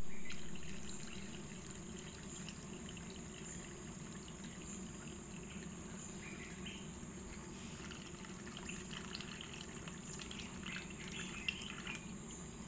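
Thick coconut milk pouring in a thin stream into a pot of simmering curry: a faint, steady trickle and splash.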